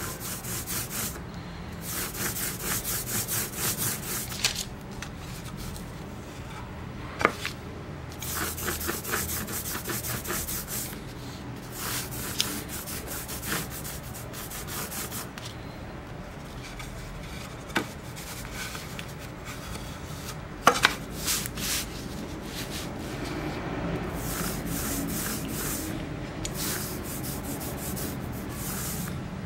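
Rubber ink brayer rolled back and forth over an inked plywood woodcut block, a rubbing sound in repeated passes, with a few sharp clicks along the way.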